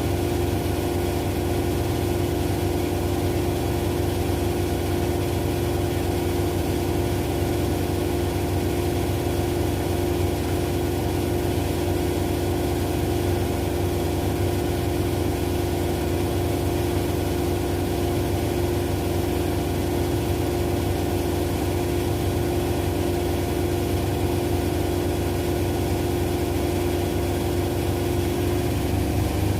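Two washing machines, an LG with the Centum direct-drive system and a Zanussi, spinning at a steady high speed: a constant motor whine over a low drum rumble.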